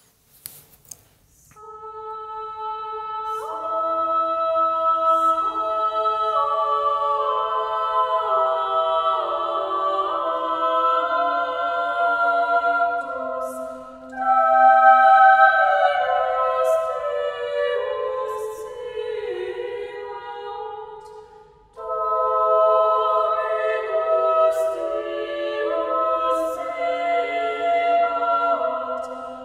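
A cappella vocal ensemble singing slow polyphony, voices entering one after another and building into sustained chords, with two short breaks between phrases. It is a chapel recording made with a multi-microphone 3D array and no added reverb, heard as a two-channel downmix.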